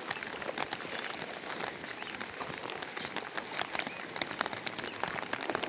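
Rain falling steadily, a constant hiss dotted with many close, sharp drop hits.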